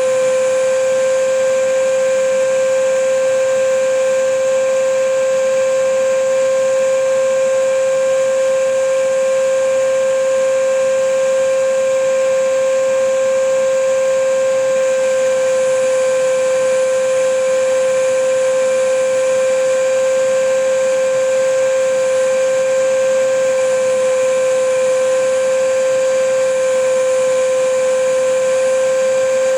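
Vacuum cleaner running steadily: a constant motor whine over an even rush of air, unchanging throughout.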